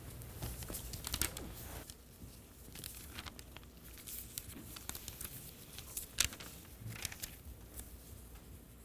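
Sheets of paper being handled on a desk: faint scattered rustles and crinkles, with a sharper one about six seconds in.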